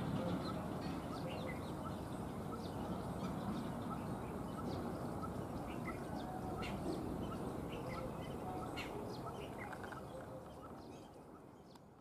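Many short, high chirps of small birds scattered throughout, over a steady low background noise; the sound fades out near the end.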